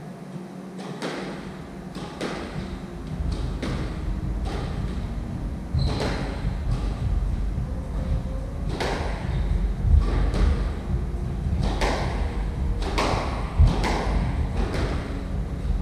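A squash rally: the rubber ball smacks off the rackets and the court walls in sharp cracks at an irregular pace, over the thud of players' footsteps on the wooden floor.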